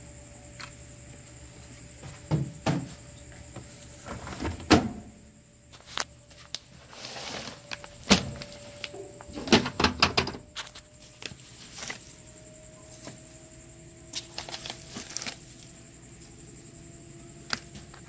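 Irregular knocks and clicks of plastic being handled as fabric softener is poured into the plastic dispenser drawer of a top-load washing machine, with a short hiss about seven seconds in.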